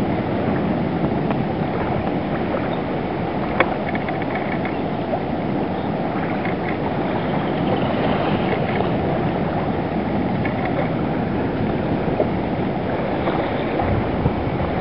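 Steady rushing of wind and lapping water at a lagoon shore, with a single sharp click about three and a half seconds in.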